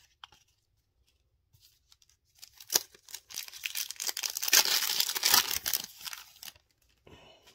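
A Panini Fortnite trading card foil pack being torn open and crinkled by hand. After a few faint handling ticks, the tearing and crinkling starts about three seconds in and runs for nearly four seconds, loudest in the middle.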